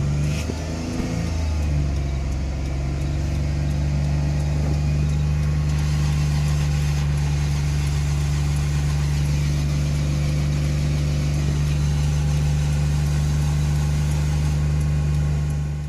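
Car engine revved up over the first couple of seconds, then held at a steady high idle of about 3,000 rpm.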